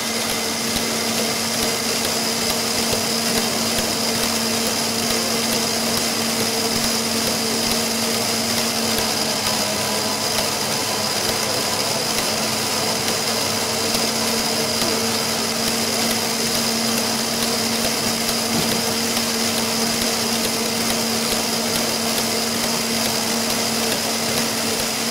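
Meccano model of a tandem compound mill engine running, a steady mechanical whirr with a constant hum at an even pitch and level throughout.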